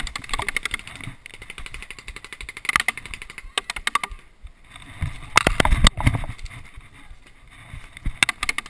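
Dry grass rustling and crackling as gloved hands grab and pull at it close to the microphone, with a louder burst of crunching and knocks about five to six seconds in.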